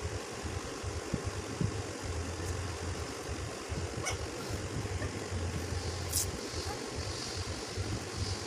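A low mechanical hum with a steady hiss, like a fan or motor running, with a sharp click about four seconds in and a brief hiss about two seconds later.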